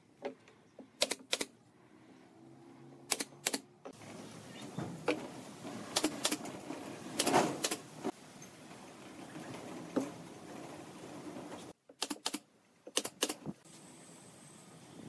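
Sharp clicks, mostly in quick pairs, about six pairs, amid light knocks and rustling of pine boards being handled and fastened on a wooden frame.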